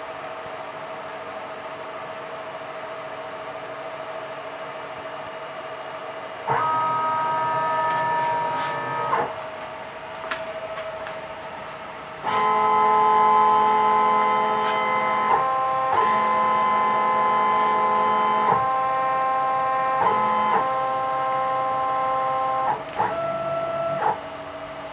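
Stepper motors driving the X and Y axes of a Shizuoka AN-S CNC milling machine as it runs a program: whining tones over a steady hum. The whine comes in about six seconds in, stops, then resumes for about ten seconds, stepping up and down in pitch as the table's moves change speed, with a short burst near the end.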